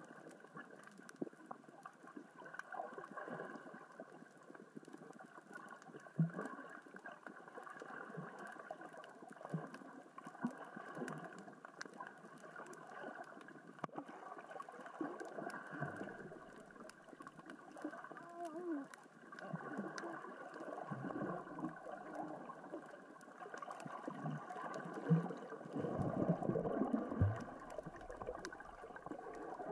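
Underwater ambience on a rocky sea floor: a continuous crackle of small clicks from small rocks rolling along the bottom in the current and tide, with low water surges swelling up, loudest near the end.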